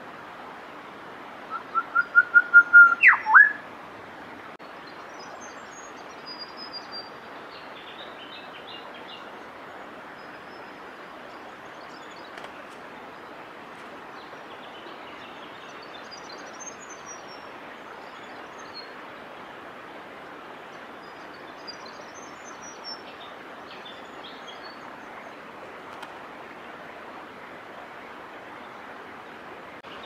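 Grey shrike-thrush song: a loud whistled phrase about two seconds in, a quick run of about eight notes on one pitch ending in a sharp note that sweeps up, drops and rises again. After it come only faint, scattered high chirps over a steady hiss.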